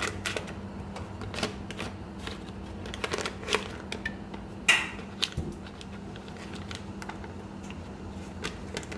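Metal spoon clicking and scraping in a plastic butter bag and tapping the pot as chunks of butter are scooped into the cheese sauce pot, in scattered light taps with one sharper ringing tap a little under five seconds in. A steady low hum runs underneath.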